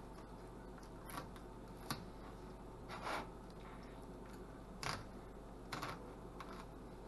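Fillet knife cutting and scraping through a golden shiner on a cutting board: about six short, faint scrapes and clicks, spaced out unevenly.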